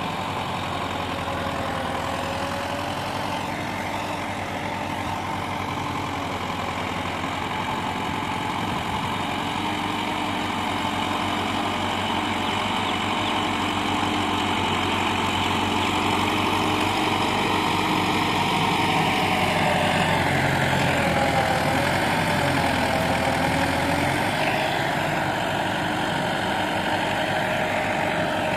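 Massey Ferguson 385 tractor's four-cylinder diesel engine running under load as it pulls a harrow through dry soil, growing gradually louder. About two-thirds of the way in, its pitch wavers up and down for a few seconds.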